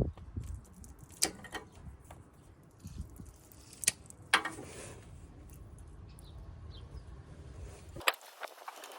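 Scattered sharp plastic clicks and handling noises from an Ethernet cable being joined with an external RJ45 coupler, over a low rumble that cuts off abruptly about 8 seconds in.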